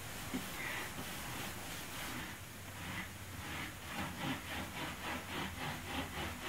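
Paintbrush strokes over a wooden drawer front, then, from about four seconds in, a cloth rubbed briskly back and forth over the surface at about four strokes a second, wiping back freshly brushed-on black glaze.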